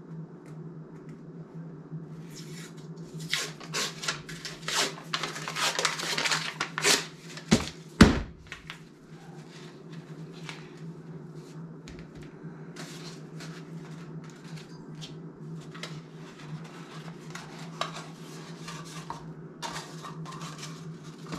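A tube of refrigerated biscuit dough being opened: its paper wrapper crinkles and tears for several seconds, then the tube gives a single loud crack about eight seconds in as it bursts open. Quieter scattered clicks and taps follow as the dough is handled on the counter, over a steady low hum.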